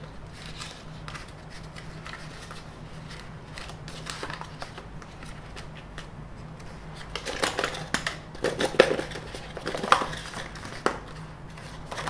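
White paperboard packaging being handled and pulled apart: a product box's cardboard insert sliding and scraping, with light taps. The handling grows busier and louder, with a run of scrapes and knocks, about seven seconds in.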